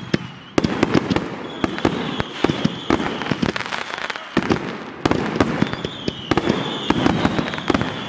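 Consumer aerial fireworks firing in quick succession: dense, overlapping sharp bangs and bursts with no pause. A thin high whistling tone runs through twice, from about one and a half seconds in and again from about six seconds in.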